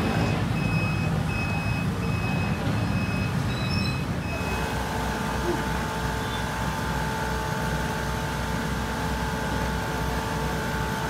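A small engine running steadily under a procession float, with a high electronic beep repeating about twice a second for the first four seconds or so; after that the beeping stops and a steady hum sits over the engine.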